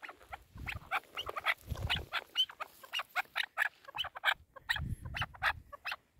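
Chukar partridges clucking: a rapid, irregular run of short, sharp clucks.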